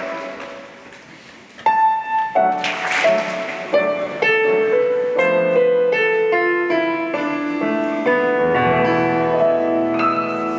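Piano music playing a melody of separate notes, starting about two seconds in after a brief lull, with a short burst of noise about three seconds in; lower bass notes join near the end.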